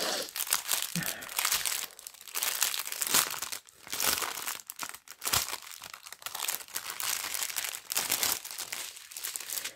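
Clear plastic wrapping crinkling as hands pull it off a strip of diamond-painting drill bags, in irregular spells with brief pauses.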